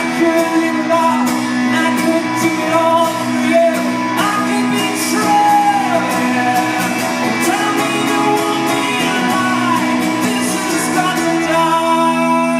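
A man singing loudly in long sliding notes over a strummed acoustic guitar, performed live. Near the end the voice drops away and the guitar rings on.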